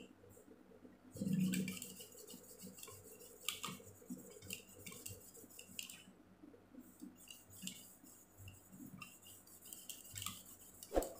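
Faint scattered clicks and light rubbing as a small diecast miniature truck is handled and rubbed to wipe off its paint lettering with eucalyptus oil. There is one brief, louder low sound about a second in.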